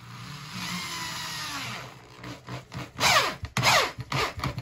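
Power drill driving a 3-inch decking screw up through ceiling drywall into a wooden 2x4: the motor runs steadily for about two seconds, its whine sagging slightly under load, then gives about three short trigger bursts, each a whine that falls in pitch, as the screw is snugged down.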